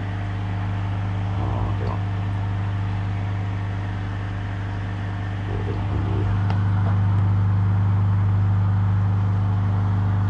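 Aquarium pump humming steadily, a low electric hum with several steady overtones, a little louder from about six seconds in.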